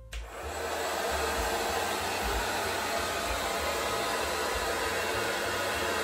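Hot Tools hand-held hair dryer switched on and blowing into the hose of a soft bonnet attachment: a steady rush of air that starts suddenly, builds over about the first second and then holds even.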